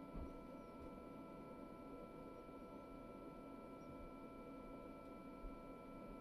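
Very quiet, steady hum with a faint high whine of a few constant tones, typical of the SUNLU filament dryer's small internal fan running while the unit heats.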